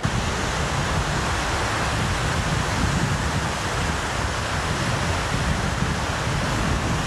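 Small waves breaking on the shore, a steady rushing noise, with wind buffeting the camcorder microphone in a low rumble.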